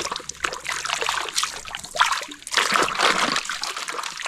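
Water splashing and trickling as toys are washed, coming in uneven spurts with brief lulls.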